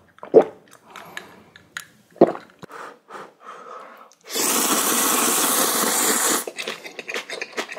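A person gulping a few mouthfuls of water, then slurping a big mouthful of instant ramen noodles in one long, loud slurp of about two seconds, starting about four seconds in, followed by wet chewing.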